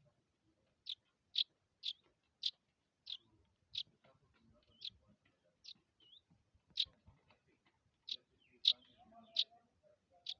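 A small bird chirping: about a dozen short, high chirps at uneven intervals.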